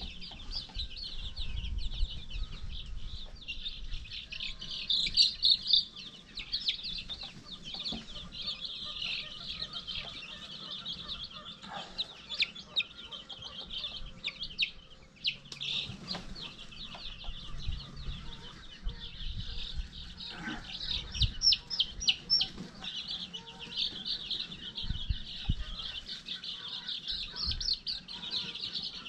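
A large brood of baby chicks peeping nonstop, many high chirps overlapping into a dense chorus, with a few low knocks and bumps from handling mixed in.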